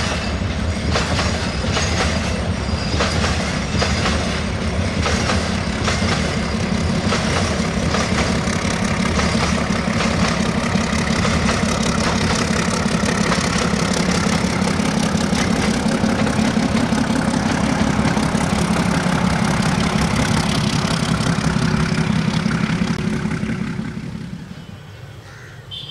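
Freight train of bogie oil tank wagons rolling past. Its wheels clatter rhythmically over the rail joints above a steady rumble, and the sound fades away near the end as the train draws off.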